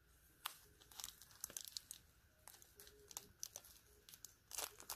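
Clear plastic zip-top bags filled with soil mix crinkling as they are handled and shifted: irregular sharp crackles, busiest about a second in and again just before the end.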